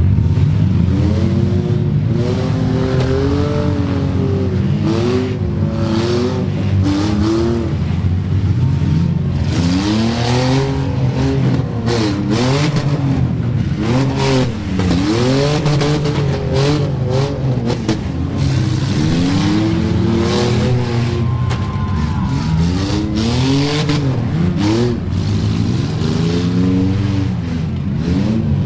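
Several demolition derby cars' engines revving up and down over and over, overlapping, above a steady low engine drone. Repeated sharp crashes of the cars ramming each other are heard throughout.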